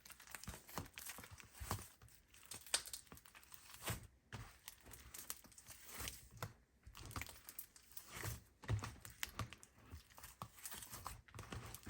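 Hands working Play-Doh slime on paper: soft irregular squishes, small sticky clicks and paper crinkling.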